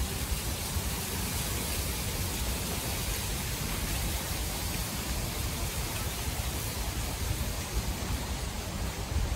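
Wind in the trees: a steady rushing hiss, with an uneven low rumble of wind against the microphone.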